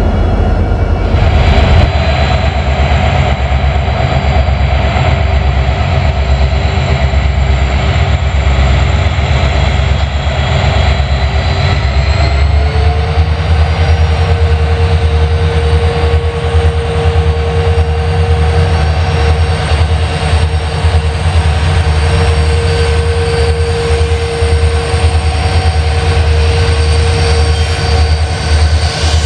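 Diesel locomotive running hard: a deep engine rumble with a steady high whine over it. About 12 seconds in, the whine and the engine's tone step up in pitch.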